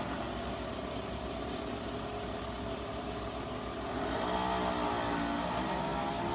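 A motor vehicle's engine passing, growing a little louder about four seconds in as its pitch bends, over steady outdoor background noise.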